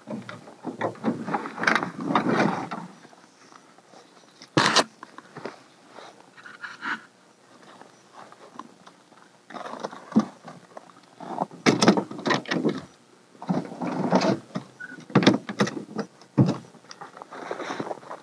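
Footsteps crunching in snow, in irregular bursts with a couple of pauses, and one sharp click partway through.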